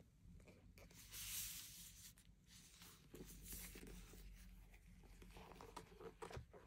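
Faint rustling and crinkling as thin plastic gloves handle a hardcover journal, in bursts about a second in and around three seconds, with a few small taps near the end.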